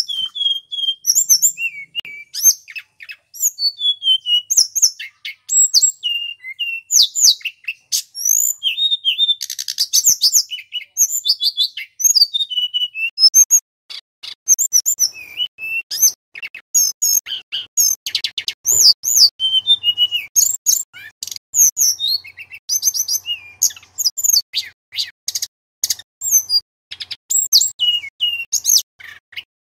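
Male tledekan gunung, a Cyornis blue flycatcher, singing a long, varied song of high whistled phrases and quick trills, with a fast buzzy rattle about ten seconds in.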